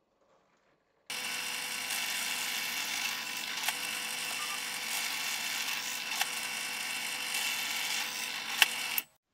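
Bench pillar drill running steadily while its bit bores pilot holes in a plywood strip, with a few sharp clicks along the way. It cuts in abruptly about a second in and stops abruptly near the end.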